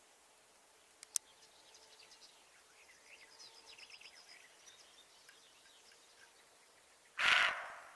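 Small birds chirping faintly, with a sharp click about a second in and a loud, harsh burst of noise lasting under a second near the end.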